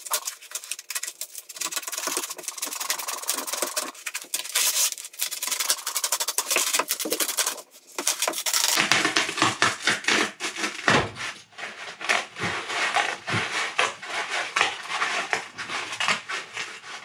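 Knife blade cutting lengthwise through a foam pool noodle: a fast run of rubbing, sawing strokes through the foam, with a few dull thuds after about nine seconds.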